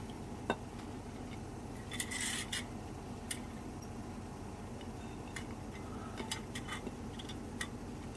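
Gloved hands handling a metal fuel bottle and the metal legs of a camping stove on concrete: a few scattered clicks and knocks, with a short scrape about two seconds in.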